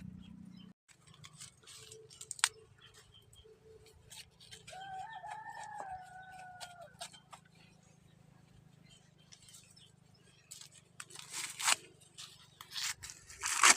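A rooster crows once, one drawn-out call of about two seconds near the middle. Brief rustling, crackling noises come before it and bunch up near the end.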